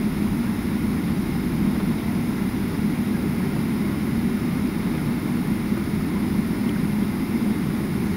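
Steady low rumble of a jet airliner's engines and airframe heard from inside the passenger cabin as the plane taxis, even in level with no rise.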